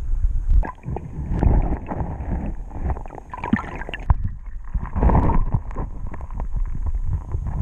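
Creek water rushing and sloshing, heard muffled through a submerged camera, with irregular knocks and clicks as a hand works among the rocks close by.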